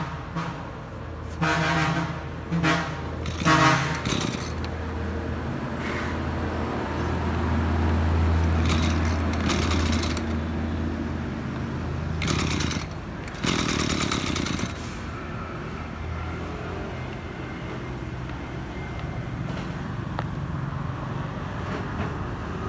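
Maruyama 230 brush cutter's small two-stroke engine idling steadily, swelling a little about eight seconds in. A few short, loud pitched noises sound over it in the first four seconds.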